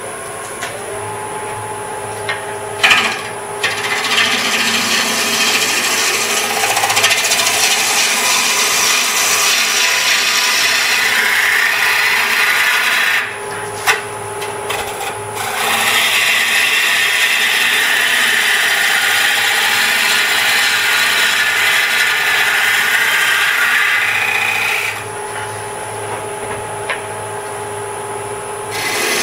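A wood lathe runs steadily while a turning tool cuts into a spinning ash bowl blank, roughing out its outside: two long stretches of loud hissing cutting, the first starting a few seconds in, with a short break in the middle and the tool off the wood near the end, leaving only the lathe's hum.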